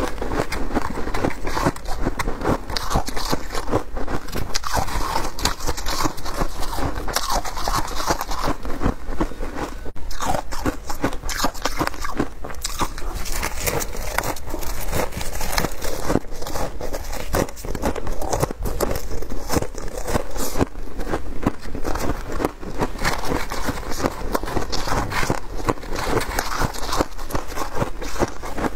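Frozen shaved ice crunching continuously as it is bitten and chewed, picked up close by lapel microphones. Between bites, gloved fingers grab and squeeze handfuls of the ice in a plastic tub.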